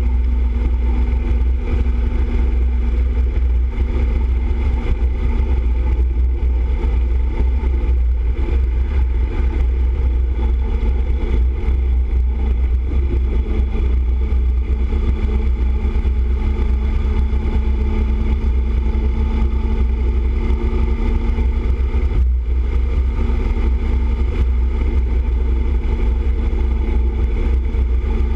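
Motorcycle cruising at highway speed: a steady engine drone under a heavy, constant wind rush on the bike-mounted microphone.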